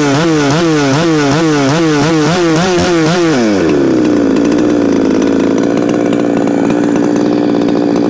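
Holzfforma G372XP Pro two-stroke chainsaw running against an anti-cut chainsaw glove, its pitch warbling up and down about three times a second. A little over three seconds in, the pitch shifts and settles into a steady run as the glove's cut-proof panel fibres wad up the chain and stop it.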